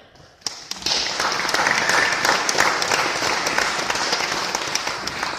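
Audience applauding at the close of the piece. The clapping starts about half a second in, swells to full within a second, and begins to thin out near the end.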